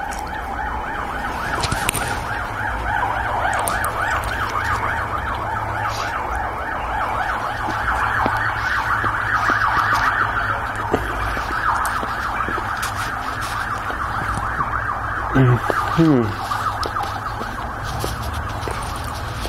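Emergency vehicle siren in a fast warbling yelp, running steadily throughout, with small clicks of eating over it. About three-quarters of the way through, two short, loud falling tones stand out.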